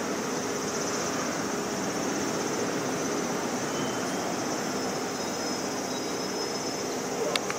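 Steady outdoor background noise with a constant high hiss and a faint low hum while a station elevator's stainless doors slide shut; a single sharp click just before the end.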